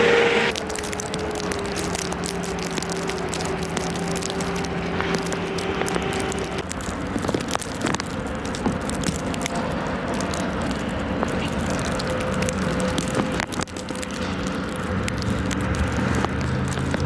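Vehicle running at a steady level: engine hum and road noise, with scattered faint clicks.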